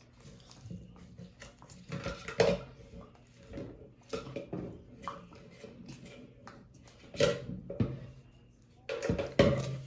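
Close-up eating sounds picked up by clip-on microphones: gulps of milk from a glass, a child chewing a donut, and several short, sharp clinks and knocks of a glass and a plate on the table.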